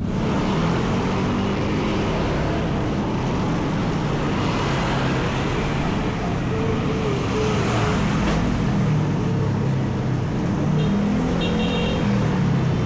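Road traffic noise: the engines of passing motor vehicles run under a steady road rumble, with a couple of short, high beeps near the end.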